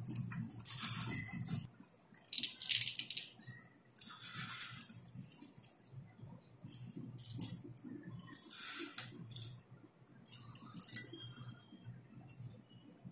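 Crisp fried boondi rattling as fingers pick it from a ceramic bowl and sprinkle it into glasses of spiced water, in short rattles every second or two.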